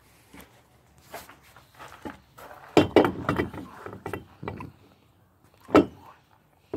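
Knocks and scuffs from a cardboard parts box being handled and opened: a cluster of clattering knocks about three seconds in, then one sharp knock near the end.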